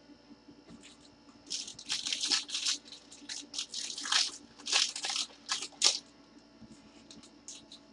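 Foil wrapper of a trading card pack crinkling as it is handled and torn open in gloved hands, in a string of short rustles.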